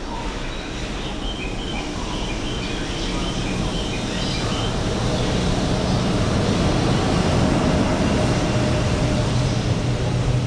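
A train running close by, its low rumble growing steadily louder.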